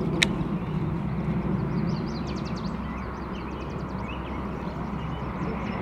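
Spinning fishing reel being wound as a swimbait is retrieved, a steady low whir, with a single sharp click at the start. A small songbird trills twice in the background.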